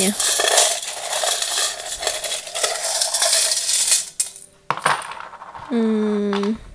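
A cupful of small metal charms and stones rattles hard as it is shaken, for about four seconds, then a few clicks as pieces fall onto the tray. Near the end comes a short hummed 'hmm'.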